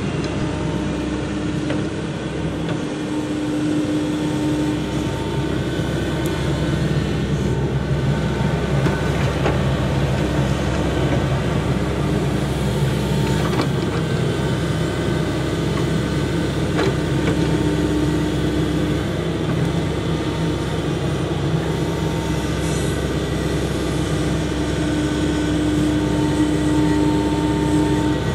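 Heavy construction machine's engine running steadily, with a higher whine that swells in and out a few times.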